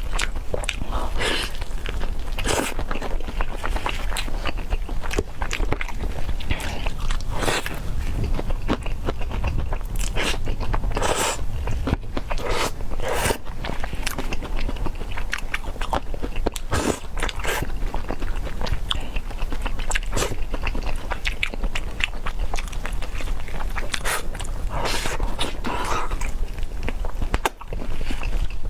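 Close-miked eating of spicy peanut chicken: bites and crunchy chewing at an irregular pace.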